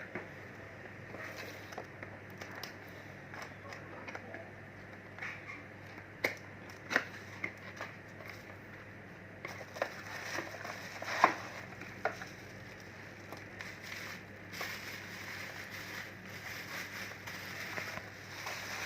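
Scattered plastic clicks, taps and crinkling from a travel iron being handled, a few sharper knocks between about six and twelve seconds in, over a faint steady hum.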